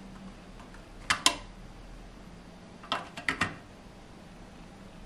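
Short sharp clicks of a metal fixed-focus block and its 3D-printed plastic holder knocking against the aluminium frame of a laser engraver as they are handled. There are two clicks about a second in, then a quick run of three or four a couple of seconds later.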